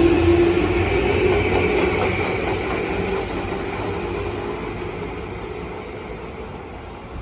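Tobu 9000-series electric train with Toyo armature chopper control moving away: a steady low tone and a higher whine over wheel and running noise, fading steadily as it draws off.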